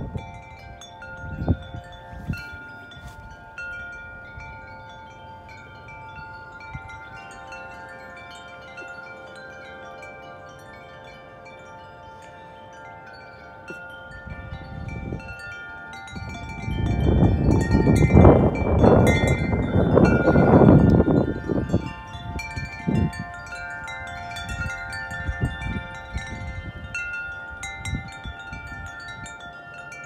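Large metal-tube wind chimes ringing in the wind, struck again and again so that long ringing tones overlap. A little past the middle, a gust of wind blows across the microphone for about five seconds, the loudest sound here.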